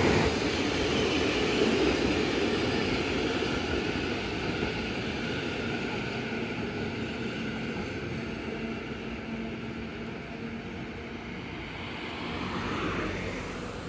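Two-car Randen street tram (Mo 102 + Mo 101 coupled) running away along the street, its steady rumble fading slowly, with road traffic alongside; a light delivery truck passes close near the end, its sound briefly swelling.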